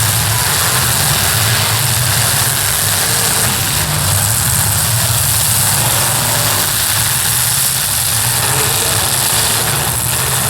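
Demolition derby cars' engines running together, a steady low engine sound over a constant hiss.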